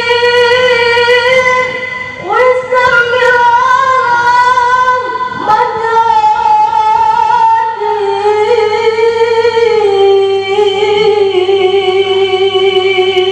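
A single voice singing unaccompanied in long held, ornamented notes: the opening solo of a marawis sholawat. It sings three long phrases, breaking for breath about two and five seconds in, and steps lower near the end.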